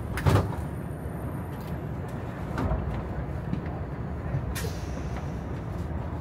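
KTX high-speed train heard from inside the cabin as it comes into the station: a steady low rumble, with a sharp knock about a third of a second in, a few fainter clicks, and a short hiss about four and a half seconds in.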